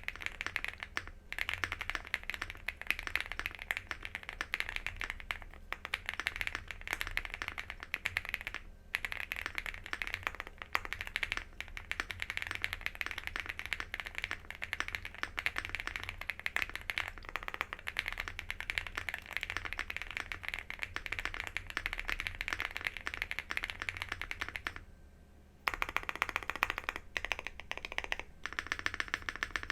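Fast, continuous typing on a stock Wobkey Rainy75 mechanical keyboard with factory-lubed WOB switches, an FR4 plate and double-shot PBT keycaps. The typing stops for about a second near the end, then carries on.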